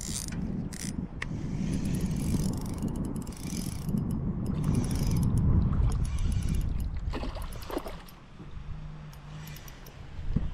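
Shimano Stella 2500S spinning reel being handled and cranked, giving a run of small mechanical clicks and ticks, over a steady low rumble.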